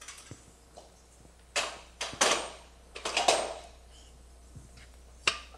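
Metal clanks and knocks from a McElroy Acrobat QuikFit fusion-machine carriage as its jaws are lifted and set onto the metal skid. The knocks are short and sharp: one after about a second and a half, a few close together around two and three seconds in, and one more near the end.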